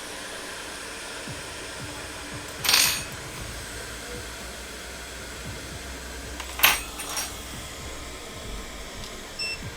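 Hot air rework station blowing steadily over a logic board during soldering, with two brief sharp noises, about three seconds in and again near seven seconds.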